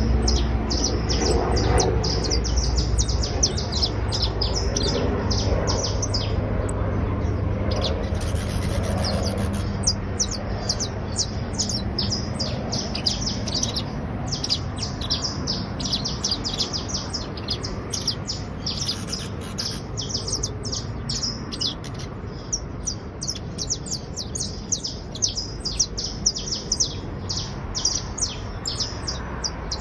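Criollo canary singing a long, coarse-toned song of rapid trills and chirps, broken by a few short pauses. A low rumble lies underneath, strongest in the first few seconds.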